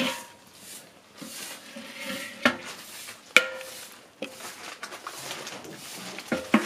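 Aluminium cooking pot and its lid clanking: a few sharp metallic knocks, each with a short ring, about two and a half seconds in, again a second later, and near the end.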